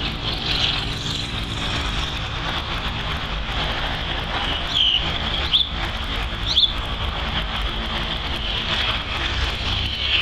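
Outdoor background noise: a steady low rumble under a steady high drone, with three short high chirps about halfway through.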